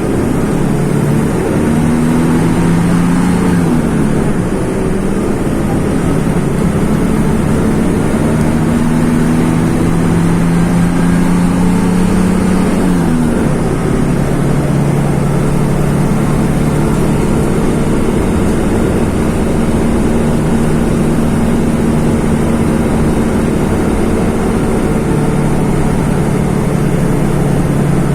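Mercedes-Benz OF-1724 city bus's OM-926 LA six-cylinder turbodiesel engine pulling through its manual gearbox. The engine note climbs slowly, then drops at an upshift a few seconds in and again about halfway through, and holds steady after the second shift.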